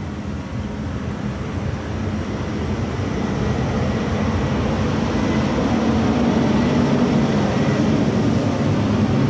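A truck's engine running steadily and growing gradually louder as it approaches.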